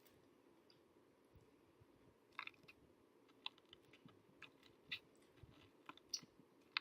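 Faint chewing of a doughnut, heard as scattered soft mouth clicks and smacks that begin about two seconds in, over near silence.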